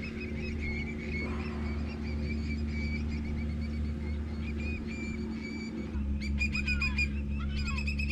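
Birds calling with repeated short chirps, growing busier with quick, gliding calls from about six seconds in, over a steady low hum.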